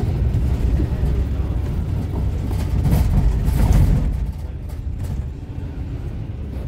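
Cabin noise inside a moving Volvo MCV Evora single-deck bus: a steady low rumble of engine and road. It grows louder a few seconds in, then eases off about four seconds in.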